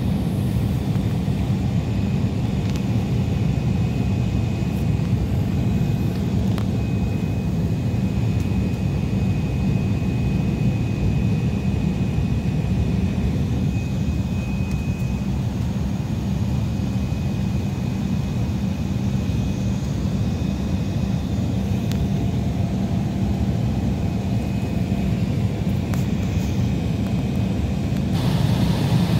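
Steady low rumble of jet aircraft running on an airport apron, with a faint high whine through the first half. The sound turns brighter and hissier near the end.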